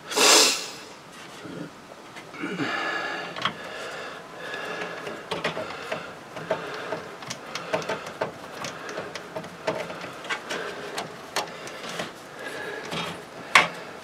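A coarse-thread motherboard screw being worked into a case standoff: many small metal clicks and light scraping as it is turned and seated. A loud sniff near the start.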